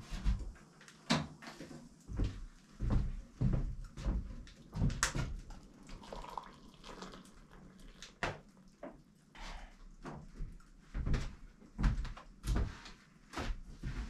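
A string of knocks and footfalls on a wooden plank floor, with a stainless kettle handled around them. About midway, hot water is poured from the kettle into a styrofoam container.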